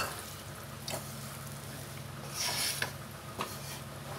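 Wooden spatula stirring and scraping a thin, watery masala gravy in a nonstick pan: wet swishing with a few light knocks and a brief louder scrape a little past the middle, over a steady low hum.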